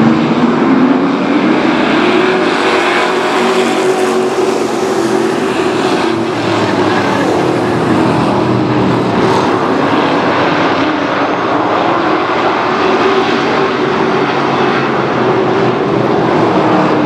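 A pack of stock race trucks running together, their engines a loud, continuous drone whose pitch rises and falls as the field circles the track.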